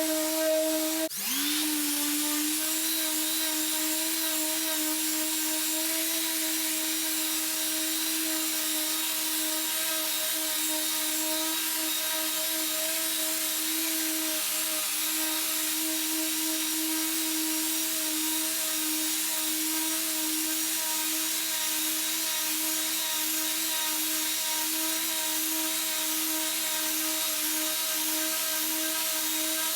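Electric power tool motor running steadily with a constant whine over a hiss. Its pitch dips briefly about a second in, then comes back up and holds.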